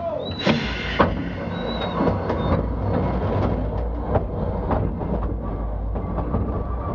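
Underground colliery train running along the rails through a mine roadway: a steady low rumble with frequent clanks and knocks. There are brief high-pitched squeals in the first two seconds.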